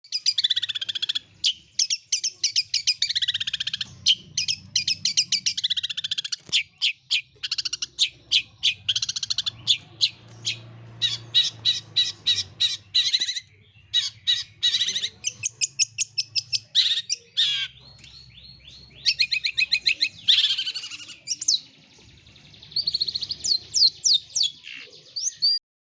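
Long-tailed shrike (cendet) singing an almost unbroken run of rapid, high chirps and trills that mimic Eurasian tree sparrow calls, with brief pauses.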